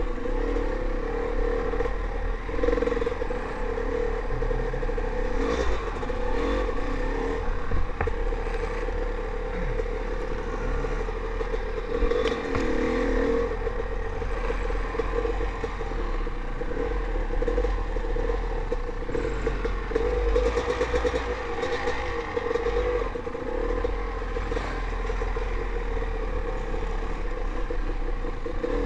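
Dirt bike engine running as the bike is ridden along a rough trail, its pitch rising and falling with the throttle. Knocks and rattles from the bike come through at intervals as it goes over bumps.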